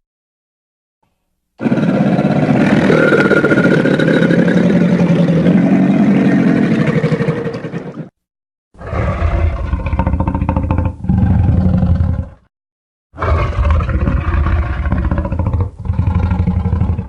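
Edited fantasy dragon roars mixed from film monster and dinosaur roar sound effects: one long roar of about six seconds, then two shorter roars after short pauses, each broken once partway through.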